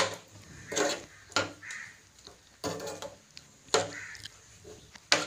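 A spatula stirring and scraping a thick curd-and-tomato masala in a nonstick frying pan, in about six separate rasping strokes.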